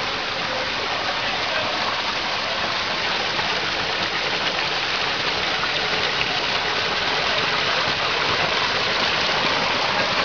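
Shallow rocky stream running: a steady rush of water flowing over stones.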